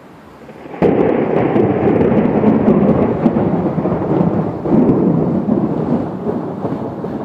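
Thunder from a close lightning strike: a sudden loud crack a little under a second in, then a long rumble that swells again midway and slowly fades.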